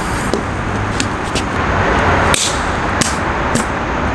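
Firecrackers going off inside a lidded non-plastic step trash can packed with cat litter and laundry powder: several short, muffled pops spread over a few seconds, the loudest about two and a half seconds in. The packing keeps the blasts dull, measured at about 84 dB.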